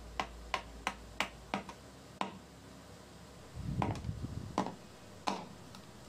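Small hammer tapping on a washing machine's gearbox: a quick run of sharp light taps, about three a second, for the first two seconds, then a few slower knocks, one with a dull thud just past the middle.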